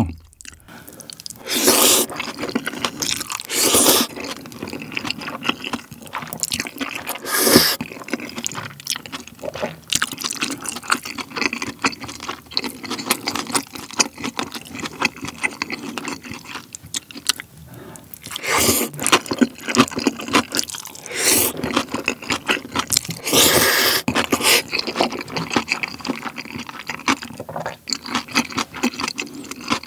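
Close-miked eating sounds of black-bean-sauce noodles (jjajangmyeon): several loud slurps spread through, with wet chewing and mouth clicks in between.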